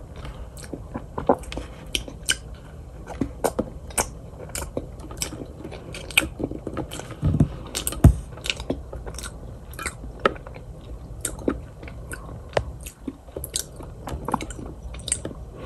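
Sugar cookie being chewed close to the microphone, ASMR-style: a run of small, crisp, irregular crunches.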